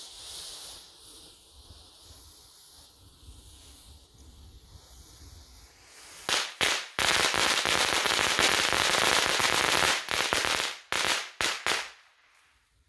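Seven packs of firecrackers bundled on one green visco fuse: the fuse hisses for about six seconds. Then the firecrackers go off, two separate bangs followed by about three seconds of dense, continuous rapid-fire popping and a few last bursts before it stops.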